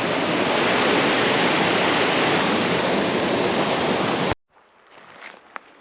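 Small waterfall rushing, a steady loud wash of falling water that cuts off abruptly about four seconds in; then faint footsteps on a trail.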